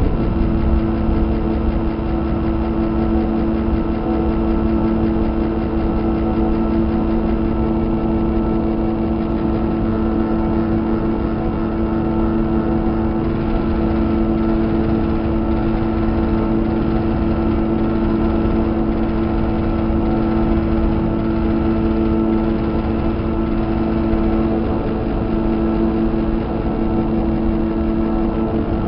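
Steady mechanical drone, like an engine or machine running, with two steady hum tones over a low rumble and no change throughout.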